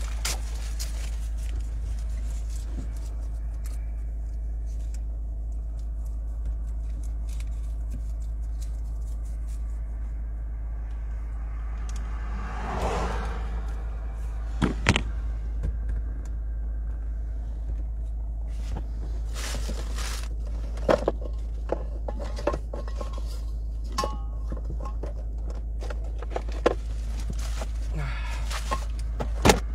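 Car engine idling, heard from inside the cabin as a steady low rumble, with scattered clicks and knocks from inside the car.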